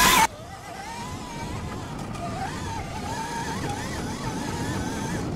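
BHR E-Race electric dirt bike under way: its electric motor and four-speed gearbox give a whine that wavers up and down in pitch with the throttle, over a steady rushing noise. At the very start a louder burst of the same whine cuts off abruptly.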